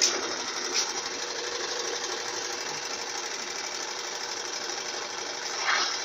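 Consul Maré CWL75 top-loading washing machine on its spin cycle: the basket spins with a steady mechanical whir. There is a sharp click at the start and another just under a second in, and louder irregular swishes set in near the end.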